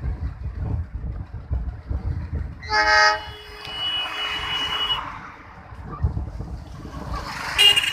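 Horn blasts: a brief loud blast about three seconds in, with a steadier horn tone carrying on for a couple of seconds, and another blast starting near the end. Wind rumbles on the microphone throughout.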